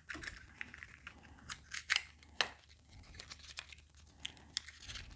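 Packaging and small accessories being handled: quiet crinkling and rustling with scattered sharp clicks, a couple of louder crackles about two seconds in.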